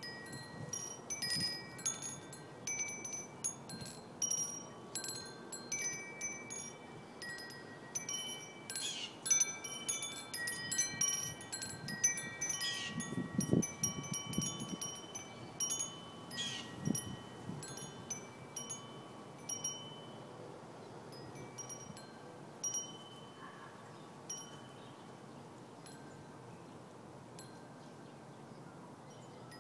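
Metal-tube wind chime with amber glass orbs and beaded prisms tinkling in the breeze, its tubes struck at irregular moments and ringing on. The strikes come thick for about twenty seconds, then thin out and die away.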